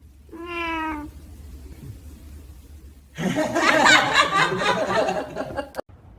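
A single cat meow, then laughter that starts about three seconds in and runs for about two and a half seconds.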